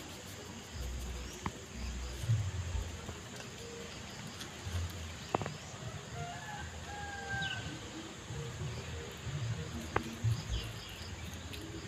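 Outdoor ambience: insects chirping, a short bird call about halfway through, a few sharp clicks, and a low rumble underneath.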